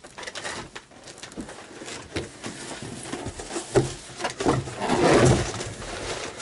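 A large cardboard shipping box being shifted and tipped over: scattered knocks and scuffs of cardboard, a sharper knock a little before four seconds in, and a louder scraping rush about five seconds in.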